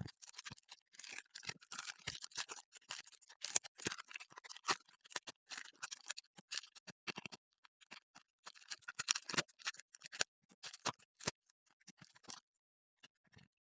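Crinkly rustling and small clicks of packaging and sticker sheets being handled while unpacking stickers. The dense crackling stops about twelve seconds in, and a few faint taps follow.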